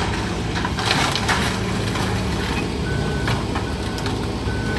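A diesel engine of heavy demolition machinery runs steadily while debris clatters in the first second or so. Near the end a backup alarm beeps three times.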